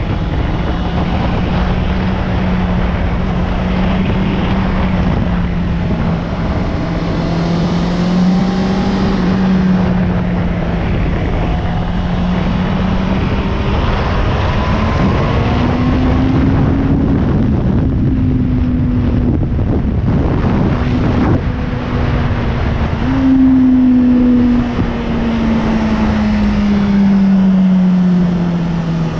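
Sport motorcycle engine pulling along at road speed, heard from on board, with wind rushing over the microphone. The engine note rises and falls with the throttle; a little after the middle it jumps up sharply and then slowly falls away.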